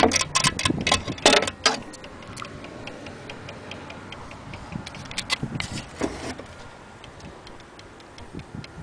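Gustav Becker wall clock's escapement ticking at an even beat, with a cluster of loud knocks and rattles in the first couple of seconds as the pendulum rods are handled.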